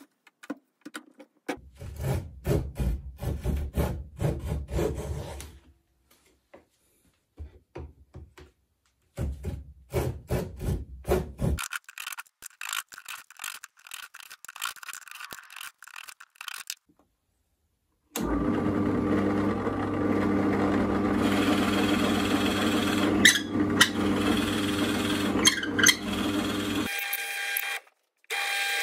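Veritas small plough plane cutting a dado in walnut: two runs of rasping planing strokes, then lighter scraping strokes. After a short pause, a drill press runs steadily with a steady hum while a Forstner bit bores into walnut, with a change in the sound near the end.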